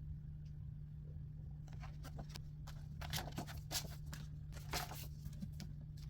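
Paper and a book being handled: a run of short rustles and crackles in the middle, over a steady low hum.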